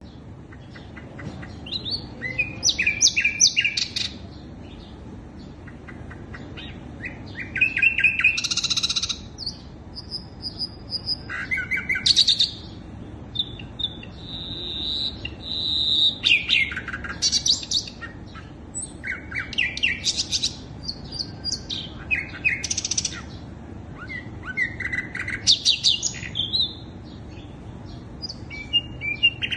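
Sikatan londo flycatcher song: phrases of quick, high chirping and trilling notes, each lasting about a second, repeated every two to three seconds with short pauses between them. It is the kind of song recording played to trigger caged birds to sing. A steady low hum of background noise runs underneath.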